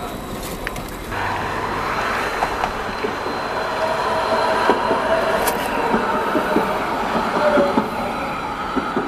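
Low-floor electric tram approaching and passing close by, growing louder from about a second in. It carries a steady whine and light clicking of wheels on the track.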